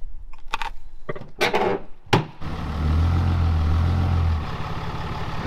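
A few sharp metal knocks and clanks. About two seconds in, a vehicle engine comes on and runs steadily with a low drone, loudest for a couple of seconds.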